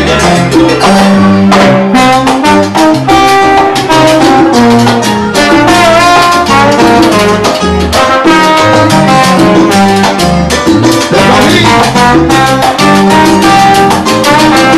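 Live salsa band playing loud, trombone lines over timbales and conga drums.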